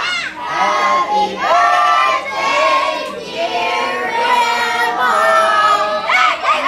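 A group of voices, children among them, singing together.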